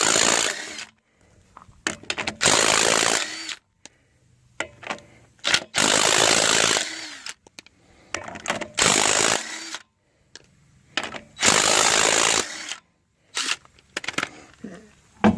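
Impact wrench spinning off the wheel's lug nuts: about five loud buzzing bursts of roughly a second each, a few seconds apart, with small clicks of the socket going onto each nut in between.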